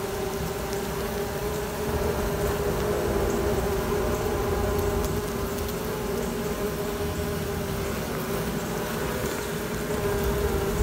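Honey bees humming in an open hive: a continuous, steady drone on one pitch.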